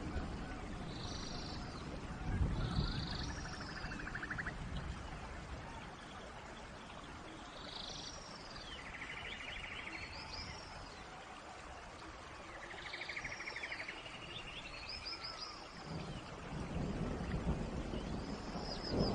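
Steady rain hiss in a forest, with animal calls repeating through it: short arched chirps and rattling trills. A low rumble swells about two seconds in and again near the end.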